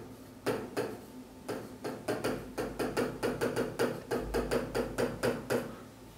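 Stylus tapping and scraping on a large touchscreen display while a word is hand-written in capital letters: a fast, irregular run of light clicks that stops shortly before the end.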